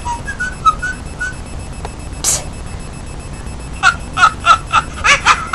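Short chirping, whistle-like tones: a few in the first second and a half, a brief hiss a little past two seconds in, then a quick run of chirps at about four a second near the end.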